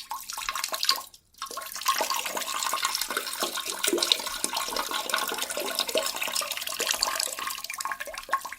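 Water rushing and gurgling, with many small bubbling splashes. It breaks off briefly about a second in, then runs on steadily.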